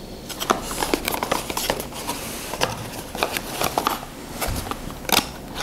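A cardboard perfume box being turned over and handled in the hands and opened: scattered light taps, scrapes and rustles, with the sharpest click about five seconds in.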